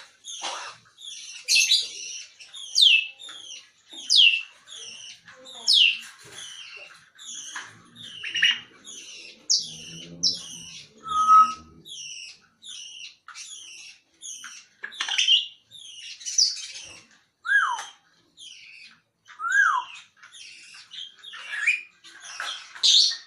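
African grey parrot whistling: loud whistles that slide downward in pitch, among a steady run of high, quick chirps.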